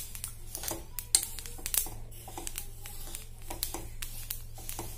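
Sesame seeds crackling with many irregular small pops and ticks as they dry-roast in a pan over a low gas flame, while a steel spoon stirs them. The crackle means the seeds are roasting through. A steady low hum runs underneath.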